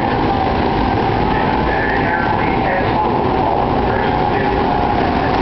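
Go-kart engines running as karts drive around the track: a steady, unbroken drone with a constant whine.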